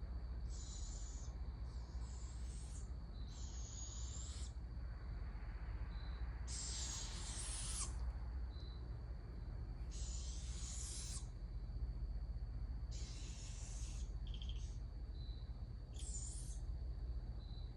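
Young barred owls giving hissing begging screeches, about seven raspy calls of roughly a second each, repeated every few seconds: the young are begging for food. A steady low rumble runs underneath.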